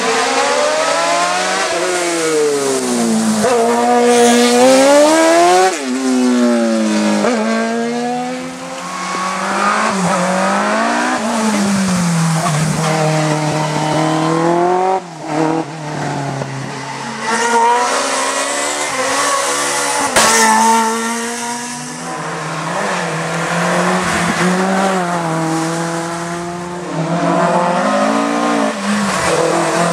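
Racing car engine revving hard, its pitch climbing and dropping over and over as it shifts up through the gears and slows for corners.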